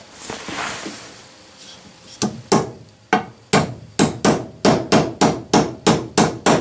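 Hammer tapping a steel transfer punch set in a chuck hole to mark the hole position on the cast-iron backing plate beneath. A couple of strikes come about two seconds in, then a steady run of about three a second, each with a short metallic ring.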